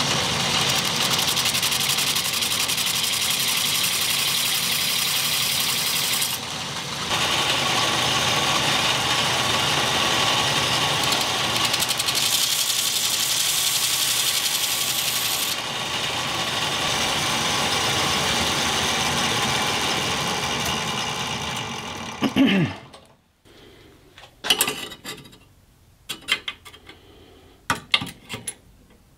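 Belt grinder running with a piece of circular-saw-blade steel pressed against the sanding belt, grinding the knife blank to shape, with a brief lift-off about six seconds in. About 22 seconds in the motor is switched off and its pitch falls as it winds down, followed by light metallic clicks and taps as the steel is handled and clamped in locking pliers.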